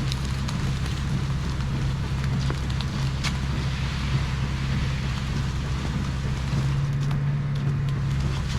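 Diesel engine of a concrete pump truck running steadily at a constant speed, with a steady hiss over the hum.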